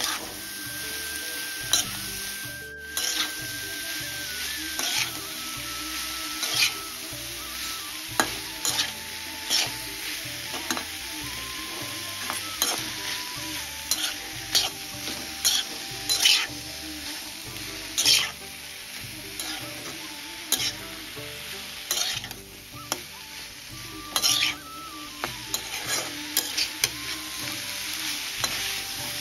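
Taro stolons sizzling in oil in a wok. A metal spatula stirs and scrapes through them in irregular strokes every second or so over the steady frying hiss.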